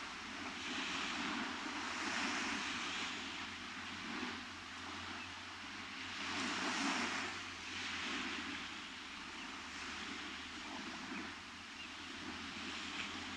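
Ocean surf washing onto a beach: a steady rush of breaking waves that swells and eases every few seconds, loudest about seven seconds in.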